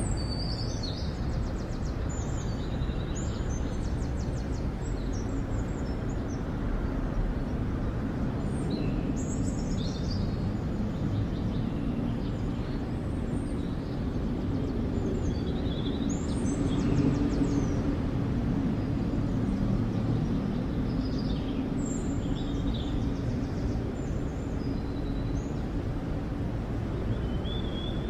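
Outdoor ambience: a steady low rumble with small birds chirping now and then, the rumble swelling a little about two-thirds of the way through.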